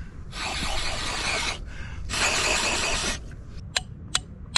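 Two rushes of air, each about a second long, as rock dust is blown out of a freshly drilled bolt hole to clean it. Near the end come three light, sharp taps of a hammer on a metal bolt being set into the hole.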